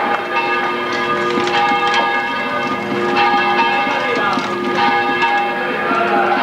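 Bells ringing: several tones struck over and over, each left to ring on.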